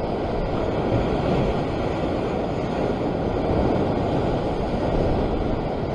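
Ocean surf breaking and washing over the rocks of a rocky shore, heard as a steady rush of noise mixed with wind on the microphone.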